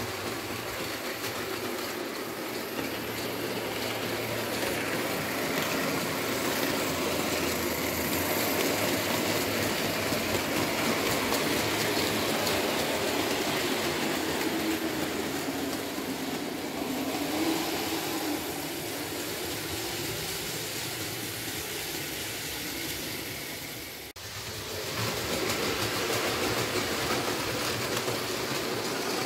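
Märklin H0 model train, an electric locomotive hauling a long rake of Ommi51 hopper wagons, running on the layout: a steady rolling rumble of metal wheels on track with motor hum. The motor's pitch sags and rises again midway, and the level dips briefly near the end.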